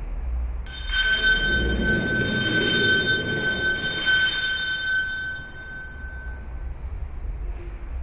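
Altar bells rung at the elevation of the chalice during the consecration at Mass. They are shaken several times starting about a second in, with bright, high, sustained ringing that fades away after about six seconds.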